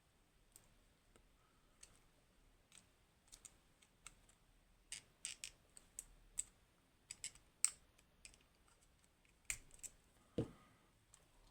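Small metal parts of a Go Grand V high-pin-count lock clicking and tapping as the lock is taken apart, with irregular scattered faint clicks and a duller knock about ten seconds in.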